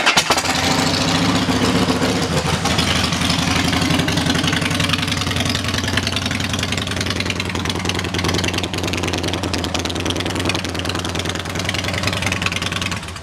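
Harley-Davidson Twin Cam 96 V-twin of a 2007 Softail Deluxe idling steadily through its aftermarket Vance & Hines exhaust.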